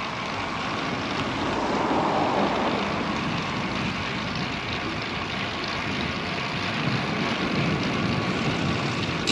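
Steady wind rush over the microphone, with the tyres of a Cervélo Caledonia road bike rolling on asphalt while riding.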